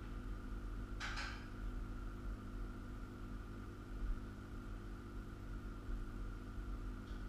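Steady low hum of room tone, with one short noisy sound about a second in.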